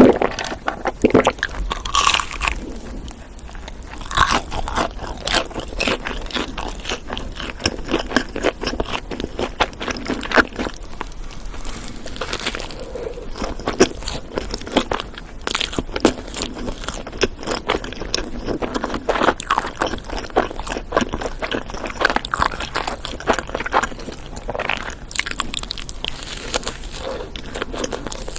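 Close-miked eating of fast food: bites and chewing, a dense, unbroken run of crunches and crackles.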